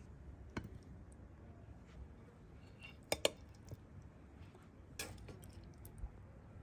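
Tableware clinking: a few scattered light clinks, the loudest a quick double clink about three seconds in.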